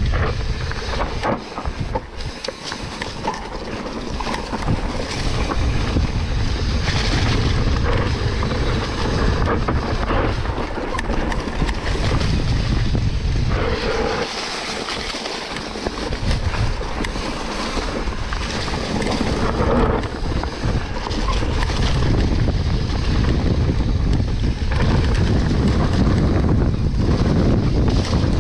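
Wind rushing over an action camera's microphone during a mountain-bike ride, with scattered knocks and rattles from the bike over rough ground.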